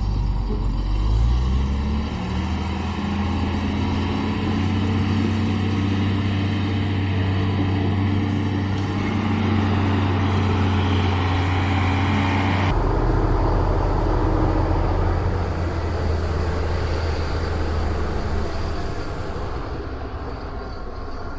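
Heavy truck engine revving up and then running steadily under load. About two-thirds of the way through the sound cuts abruptly to another stretch of engine noise.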